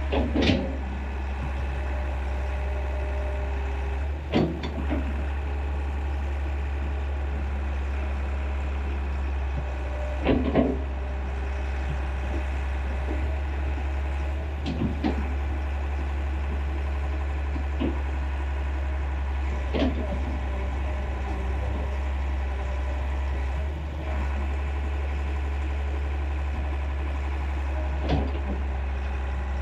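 Excavator's diesel engine running at a steady low drone, with a short knock or clank every few seconds.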